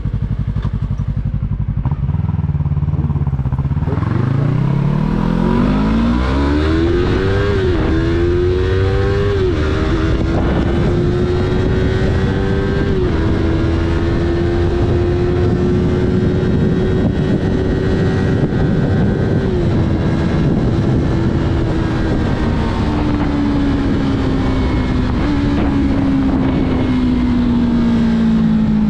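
Yamaha R3's parallel-twin engine on its stock exhaust accelerating hard, its pitch climbing steeply, then dropping at several quick upshifts. It settles into a steady tone at speed, and the pitch falls slowly over the last several seconds.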